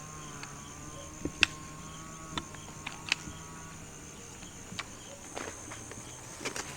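Scattered light knocks and clicks of camping gear being handled and set down, the sharpest about a second and a half in, over a steady high insect drone and a faint hum.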